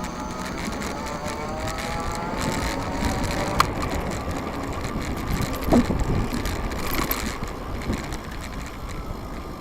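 Electric bike motor whining and slowly rising in pitch as the bike picks up speed, over low wind and road rumble, with two sharp clicks near the middle.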